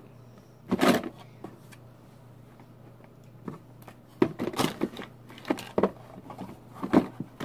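Rustles and light knocks of makeup items and containers being handled and rummaged through: one scuffle about a second in and a cluster of knocks in the second half, over a faint steady low hum.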